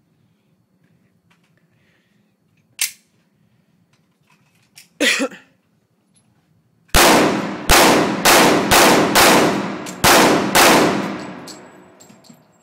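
Rifle fired rapidly, a string of about eight shots in roughly four seconds, each ringing out. A single sharp click and a short clatter come a few seconds before the shooting starts.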